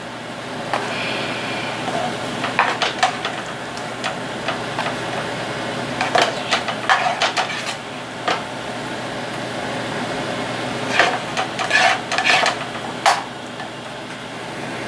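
A plastic spatula scraping and knocking against a frying pan and a plastic food container as cooked chicken is scooped out and transferred. The clatters come in irregular clusters over a steady hiss.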